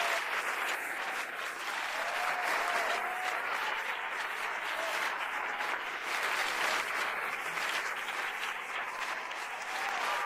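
Game show studio audience applauding steadily in dense, sustained clapping, with a few cheering voices rising over it.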